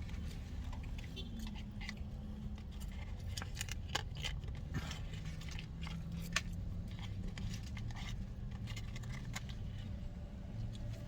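Paper wrappers and food packaging crinkling and clicking, with one sharp click about six seconds in, over a steady low hum inside a parked car.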